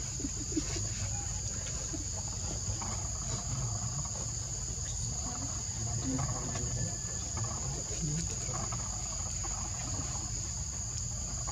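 Steady, high-pitched chorus of insects droning without a break, over a low background rumble.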